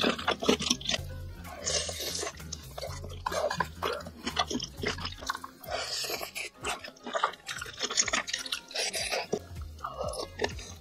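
Close-miked wet chewing and mouth sounds of a person eating spicy seafood hot pot, with irregular smacks and clicks as bites are taken.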